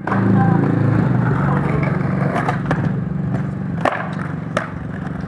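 Skateboard wheels rolling on a rough asphalt street: a steady rumble, with a few sharp clicks and knocks in the second half.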